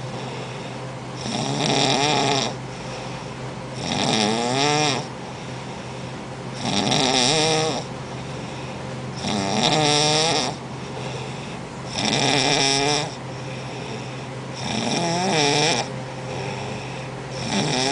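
A woman snoring in a steady rhythm: seven snores, each about a second long, one every two and a half to three seconds.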